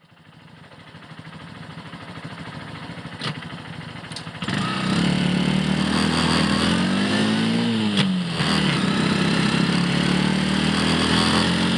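Motorcycle engine running, fading in and getting louder about four seconds in. Its pitch rises and then drops back around the middle of the stretch, as if revved and eased off.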